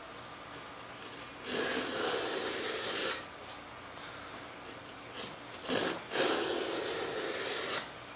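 Small hand tool drawn along the edge of a balsa-wood stabilizer panel, shaving down its leading edge: two long passes, one starting about a second and a half in and the other about six seconds in.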